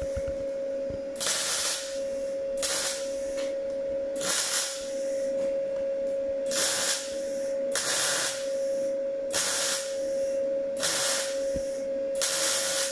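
MIG welder stitch-welding thin steel into a Ford Transit's rotted underside: about eight short bursts of arc crackle, roughly one every second and a half, each a stop-start stitch meant to avoid blowing holes and warping the panel. A steady whine from the welder's cooling fan runs under it.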